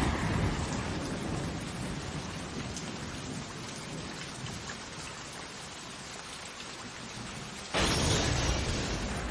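Anime sound effect: a loud, noisy rumble that fades away slowly over several seconds. A second rumble cuts in suddenly about eight seconds in and then fades out.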